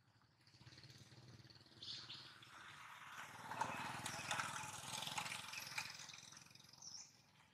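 Faint outdoor background noise with a low hum under it. It swells over a few seconds, with scattered light clicks, then fades. A bird chirps briefly near the end.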